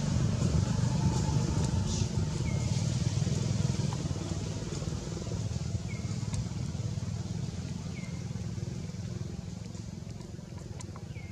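A low engine rumble, like a motorbike running nearby, slowly fading, with a short high chirp repeating every couple of seconds.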